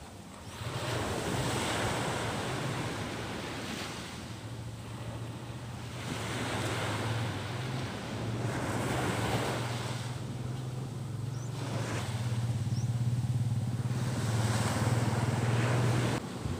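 Surf washing onto the beach, swelling and fading every few seconds, with wind buffeting the microphone and a low steady hum underneath.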